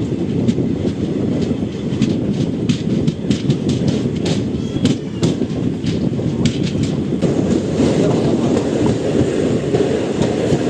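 Express passenger train running: a steady heavy rumble with rapid clicking of the wheels over rail joints, the clicks thickest in the middle of the stretch.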